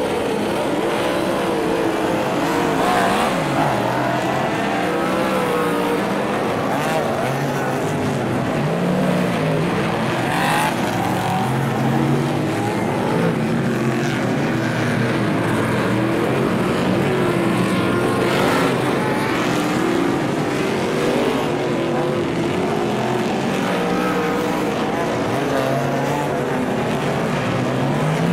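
A field of V8-engined superstock cars running on a dirt speedway oval, several engines overlapping, their notes rising and falling as they accelerate and back off through the turns.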